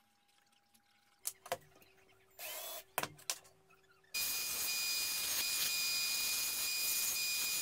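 A few knocks and a short scrape as a wooden blank is handled on the bench; then, about four seconds in, a bandsaw is heard cutting a walnut spoon blank, a loud steady rush of sawing noise with a thin high whine over it.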